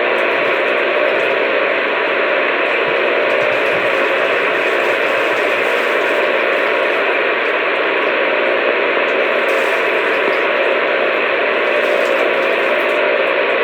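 Steady radio static: an open two-way radio channel hissing evenly, with no voice on it.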